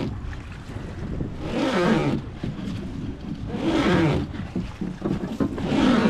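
River water rushing and splashing around a wooden river boat in a stretch of faster current, swelling in surges about every two seconds over a steady rumble, with wind on the microphone.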